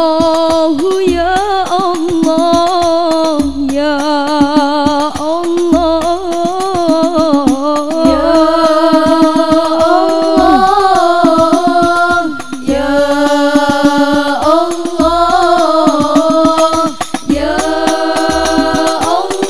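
Girls' voices singing a drawn-out, ornamented sholawat melody in unison, amplified through microphones, over banjari frame drums: quick drum strokes with a deep beat about every two seconds.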